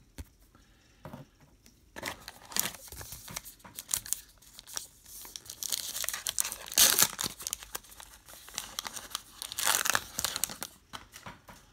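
Foil wrapper of a baseball card pack crinkling and tearing as it is ripped open by hand, starting about two seconds in, with the loudest rips around seven and ten seconds in.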